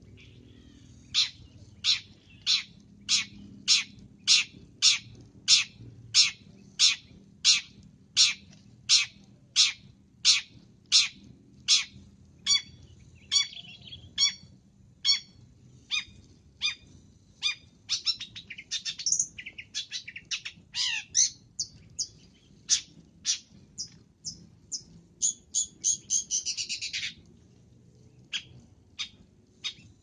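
Long-tailed shrike calling: a long series of short, sharp notes, about one and a half to two a second. It then breaks into faster chattering and a harsher, longer rasping chatter a few seconds before the end, followed by a few single notes.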